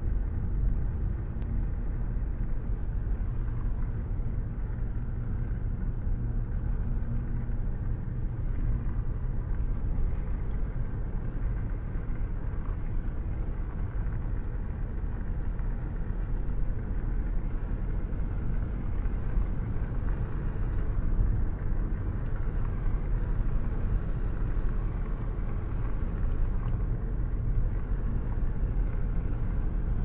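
Car driving with a window down, heard from inside the cabin: a steady low rumble of wind and road noise.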